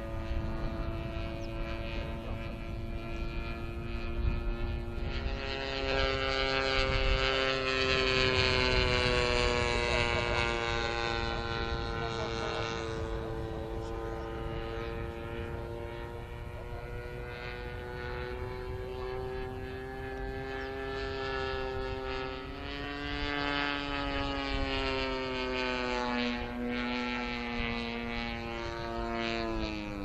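OS 160 FX two-stroke glow engine of a Seagull Edge 540 radio-controlled model plane in flight, a steady propeller drone that swells and shifts in pitch as the plane manoeuvres. Near the end the pitch drops steeply as it passes by.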